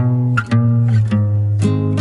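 Background music: guitar playing strummed and plucked chords.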